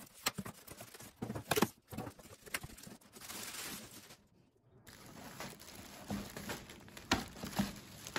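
Plastic packaging crinkling and rustling as it is handled in a cardboard box, in irregular sharp crackles, with a brief lull a little past halfway.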